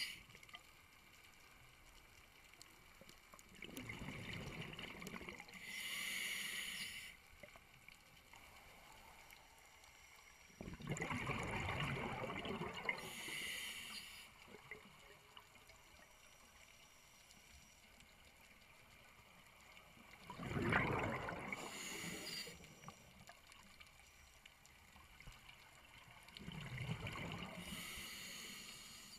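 A scuba diver breathing through a regulator underwater. Each breath has a hiss from the regulator and a rush of exhaled bubbles, repeating about every seven to nine seconds, four breaths in all.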